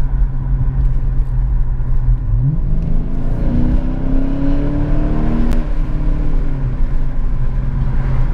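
2014 Dodge Challenger R/T's 5.7-litre Hemi V8, breathing through a new cold air intake, running steadily, then about two seconds in revving up hard in a full-throttle pull. The revs climb for about three seconds, then ease back to a steady drone.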